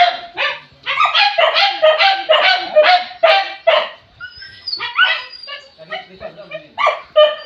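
Hunting dogs barking in a rapid, steady run of about three barks a second for the first four seconds. Then come sparser barks and yips, with a thin, high whine around the middle.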